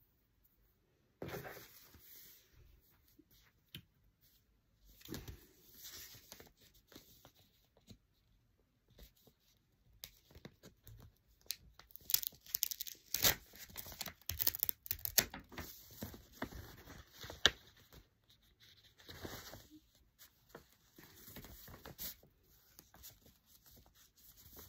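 A cardboard parcel being unpacked by hand: paper and cardboard tearing, with packaging rustling and crinkling in irregular bursts, busiest and loudest around the middle.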